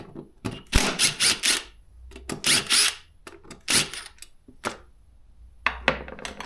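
Hand tools and metal parts clicking and clattering in short, irregular bursts as the exhaust muffler is unscrewed and taken off a Stihl MS200T chainsaw.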